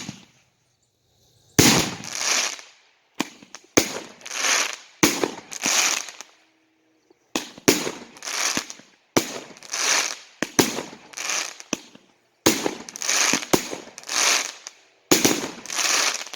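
A 200-gram, 10-shot flash-break firework cake (Torch Fireworks Thunder Series) firing in sequence. Each shot is a sharp lift crack followed by a loud, hard-hitting flash break that dies away, coming about every second and a half.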